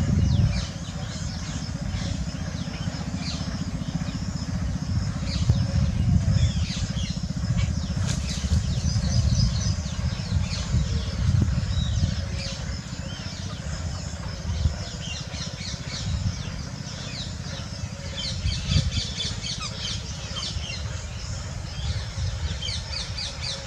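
Many small birds chirping and twittering in quick, short calls, busier in the second half, over a steady low rumble.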